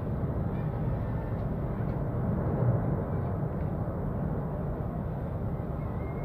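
Cumbre Vieja volcano erupting: a steady low rumble from the active vent, with no distinct blasts.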